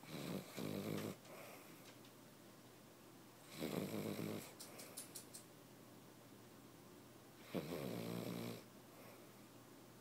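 A Cavalier King Charles Spaniel snoring in its sleep: three snores roughly every three and a half seconds, the first broken into two parts, with a few short soft clicks after the second.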